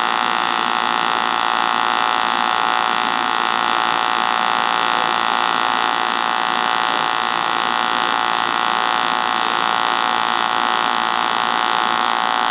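AC TIG welding arc on aluminum, a steady buzz from the alternating current, which is set somewhere between 60 and 80 hertz.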